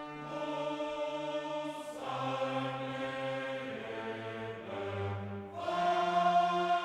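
Background music of slow, sustained held chords that change every second or two, with a lower bass note entering about two seconds in.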